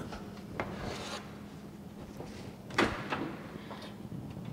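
Quiet handling of a metal baking pan being slid off a countertop and into an oven, with rubbing and scraping and a sharp clunk about three seconds in as the oven door is opened.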